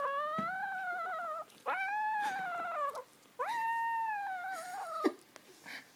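Kitten yowling three times, long drawn-out calls that slide down in pitch at the end, while it guards a chicken bone.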